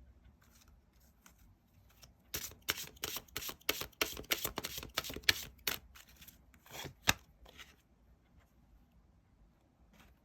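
Tarot cards being shuffled by hand: a quick run of card flicks and slaps lasting about three and a half seconds, then two separate slaps, the last one sharp.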